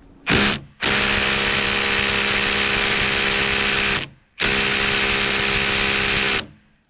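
Ryobi cordless impact driver hammering in reverse on a long timber screw jammed in a knot in a log, failing to back it out. A short burst, then two long runs of a few seconds each with a brief pause between.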